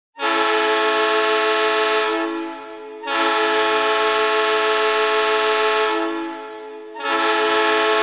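Greenville Swamp Rabbits arena goal horn blaring three long blasts, each about two to three seconds with a short fade between, the third still sounding at the end. It is the horn that signals a goal.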